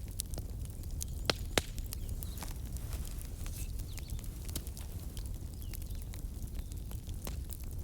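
Campfire crackling: a constant patter of small snaps and pops over a low rumble, with two louder pops about a second and a half in.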